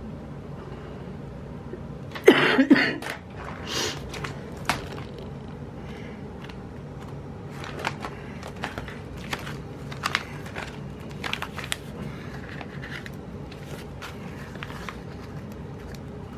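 Paper and sticker sheets being handled at a desk: a loud crinkling rustle about two seconds in, then scattered light ticks and rustles as stickers are peeled and placed, over a steady low hum.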